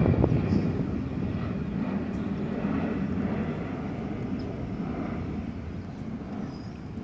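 Jet airliner's engines rumbling overhead as the plane moves away, the low rumble fading steadily.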